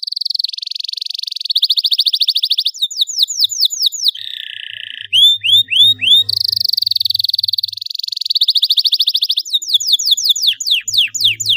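Domestic canary singing a continuous song of rapid trills and rolls, changing every second or two, broken by runs of quick downward-slurred whistled notes about three seconds in, about five seconds in and near the end.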